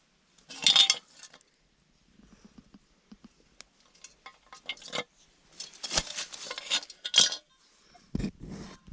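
Hand digging tool scraping and clinking against soil and stones in short bursts, with a few dull thuds near the end.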